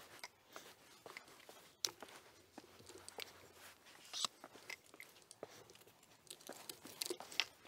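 Faint, irregular crunches and clicks of someone moving about on foot, with no steady rhythm; the sharpest come about two, four and seven seconds in.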